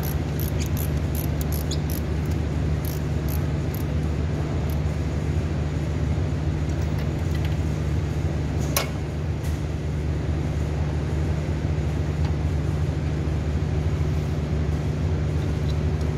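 A ratchet wrench clicking in short runs for the first few seconds while an ignition coil bolt is undone, with one sharper click about halfway through, over a steady low machine hum.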